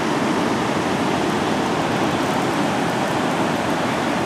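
Steady, unbroken rush of water from the dam's outflow.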